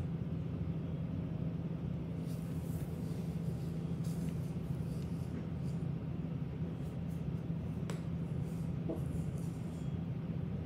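Small comb drawn through a Bernese mountain dog's thick coat, giving faint, irregular scratchy strokes over a steady low hum.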